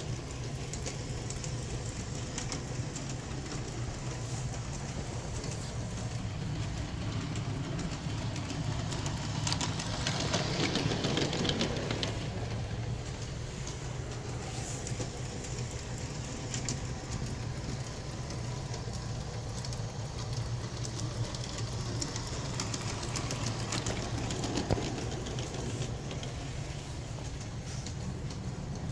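Aristo-Craft G-scale 0-4-0T model locomotive and cars running on brass track, heard up close from on board: a steady electric motor and gear hum with fast fine clicking from the wheels on the rails, briefly louder about ten seconds in.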